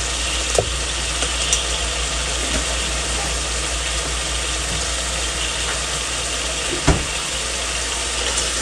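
Thin onion-and-spice masala boiling hard in a steel pot: a steady bubbling sizzle, with a light knock shortly after the start and another near the end.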